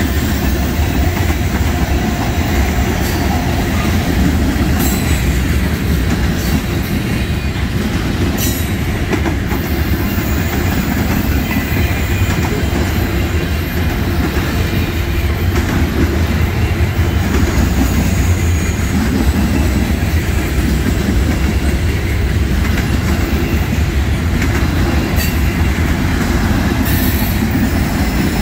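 Freight train of tank cars, boxcars and autoracks rolling past at speed: a steady, heavy rumble of steel wheels on the rails, with a few sharp clanks.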